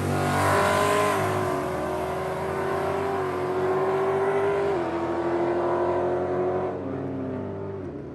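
Car engine running at low, steady speed after a drag run, its drone stepping slightly lower in pitch about halfway through and fading toward the end.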